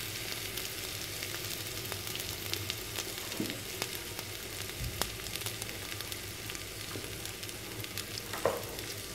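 Ginger-garlic paste sizzling in hot oil in a clay pot, a steady hiss with many small crackles and pops as the raw paste fries.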